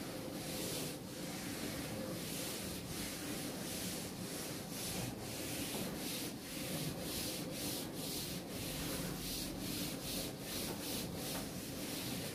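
Blackboard duster wiping chalk off a chalkboard in quick back-and-forth strokes, about two to three scratchy rubs a second.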